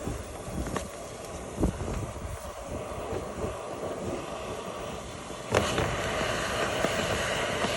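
Steady rushing noise, as from dryer vent cleaning equipment such as a vacuum or blower, with a few light knocks. It gets suddenly louder about five and a half seconds in and stays louder.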